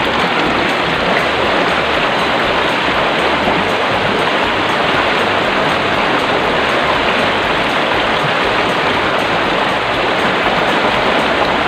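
Steady rush of running water, as water pours from a pipe into a plastic gallon jug.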